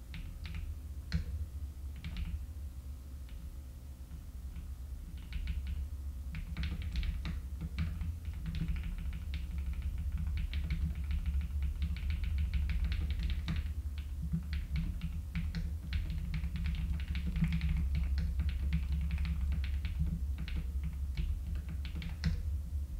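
Typing on a computer keyboard: scattered key presses for the first few seconds, then fast runs of typing from about five seconds in, over a steady low hum.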